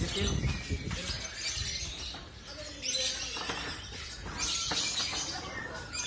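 Lovebirds in hanging contest cages chirping and trilling in several bursts of rapid, high-pitched twittering, over people's voices in the background.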